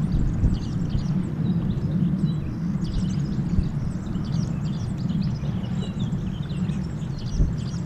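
Small birds chirping over a steady low rumble.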